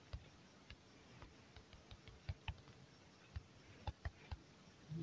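Near silence: faint room tone with a few soft, irregularly spaced clicks.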